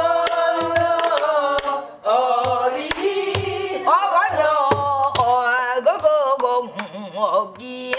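A woman singing a Korean Namdo folk song (minyo) in long held and sliding notes with a wide wavering vibrato. She accompanies herself on a pansori barrel drum (sori-buk), beaten with a stick in short strokes spaced irregularly through the phrase.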